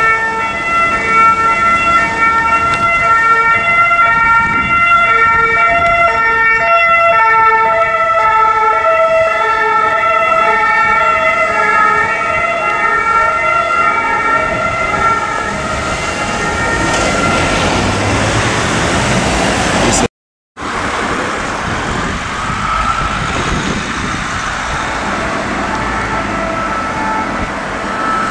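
French two-tone emergency siren alternating steadily between two pitches, fading out about two-thirds of the way through into road traffic noise. The sound cuts out briefly, and then traffic and vehicle noise continue.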